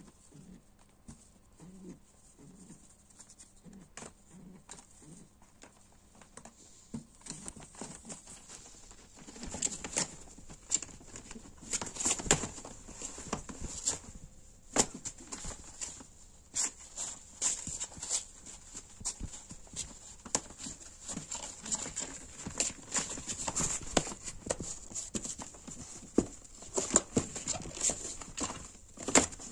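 Domestic pigeons fighting in a cardboard nest box: soft low cooing pulses at first, then from about eight seconds in, wing slaps, flapping and scuffling with many sharp clicks and knocks of claws, beaks and wings against the cardboard.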